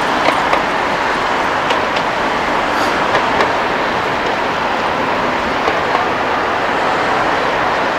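Steady city street traffic noise, a continuous rush of passing vehicles, with a few light clicks here and there.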